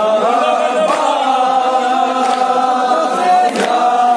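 Crowd of men chanting a noha, a Shia mourning lament, in unison. A sharp beat about every 1.3 seconds, three times, comes from hands striking chests in time with the chant (matam).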